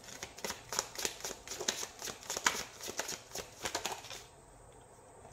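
A deck of tarot cards being shuffled by hand: a quick, uneven run of soft card clicks and flicks that stops about four seconds in.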